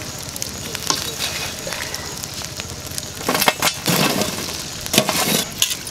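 A perforated metal ladle scraping and knocking as it spreads burning wood and embers across the metal lid of a biryani pot for dum cooking. There are clusters of clattering knocks about three and a half seconds in and again near the end, over the crackle of the fire.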